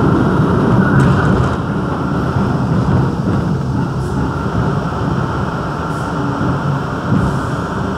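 R62A subway car running through a tunnel, heard from inside the car: a steady rumble of wheels on rail, with a few faint clicks, growing gradually quieter.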